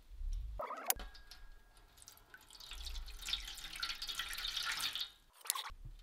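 Red liquid poured in a stream from a glass beer mug into a stainless steel tray, splashing over the blade lying in it. A sharp glass clink comes about a second in, and a short knock near the end.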